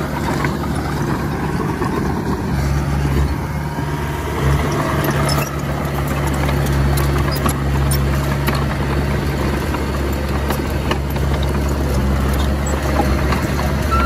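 Komatsu D31A bulldozer's diesel engine running steadily under work, its note shifting slightly a few seconds in, with scattered metallic clicks and clanks.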